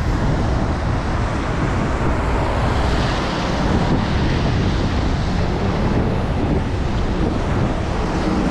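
Road traffic on a wet street: cars and city buses passing, tyres hissing on the wet asphalt, one car passing close about four seconds in, with wind noise on the microphone.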